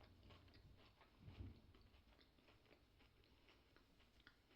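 Faint close-up chewing of a strawberry Kit Kat's chocolate-covered wafer, with many small crunchy clicks and one low, dull thump about a second and a half in.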